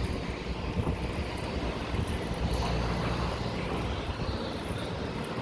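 Steady low rumble of background noise with a faint hum, no distinct events.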